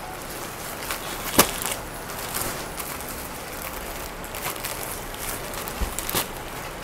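Clear plastic packaging on stacks of table mats crinkling and rustling as the packs are lifted and turned over. A sharp crack comes about a second and a half in, and a smaller one near the end.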